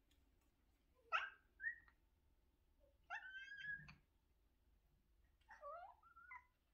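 A cat meowing three times, short calls about two seconds apart, the middle one held slightly longer.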